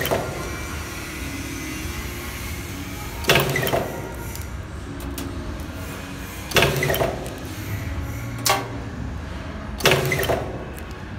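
Cable tie stainless-steel barb inserting machine cycling: a sharp mechanical clack with a short hiss about every three seconds, and a lighter click between the last two, over a steady low machine hum.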